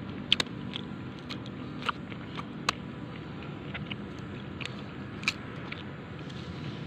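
Large knife paring and slicing a firm crystal guava by hand, giving a few crisp, sharp cuts at irregular intervals over a steady low background noise.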